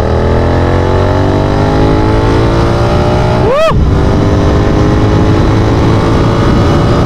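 Royal Enfield Continental GT 650's parallel-twin engine running through an Offtrails Hyperstroke S1 Pro aftermarket exhaust with its dB killers removed, accelerating under way. The note is loud and bassy and climbs steadily in pitch, breaks off briefly about three and a half seconds in, then runs on at steadier revs.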